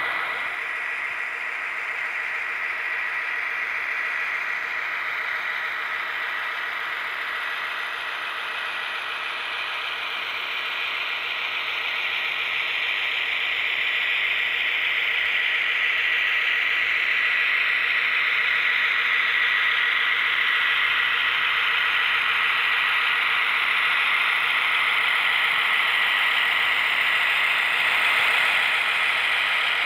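HO scale model train running along the layout's track, giving a steady mechanical whir with a thin high hum. It grows a little louder about halfway through.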